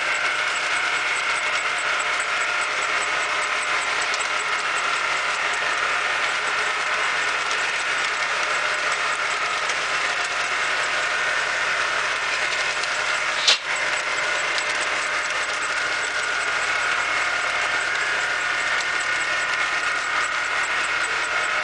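Tractor-drawn Simon RPNA leek harvester running steadily as it lifts leeks and fills its bin, a continuous machine noise of engine and conveyors. A single sharp click comes a little past halfway.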